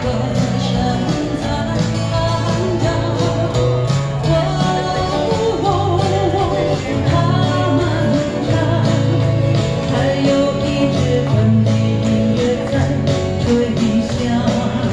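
Live amplified pop music through PA speakers: an electric guitar over a steady bass line, with a woman singing into a microphone.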